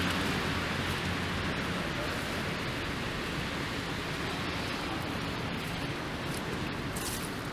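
Steady hiss of car tyres on a wet, slushy road, easing off slowly.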